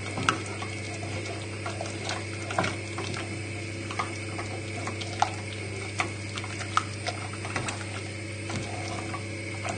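Wooden spoon stirring a thick roux with milk in a saucepan, the wet stirring broken by irregular sharp knocks of the spoon against the pan, over a steady low hum. This is the stage where milk is worked in bit by bit to turn the roux into a white sauce.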